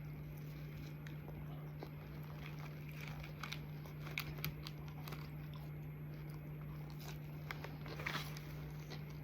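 A person chewing food with the mouth close to the microphone, faint scattered crunches and mouth clicks, over a steady low hum.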